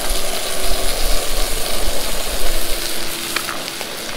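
Whole trout frying in melted butter in a hot pan, a steady sizzle with fine crackles, over a low rumble that eases off about three seconds in.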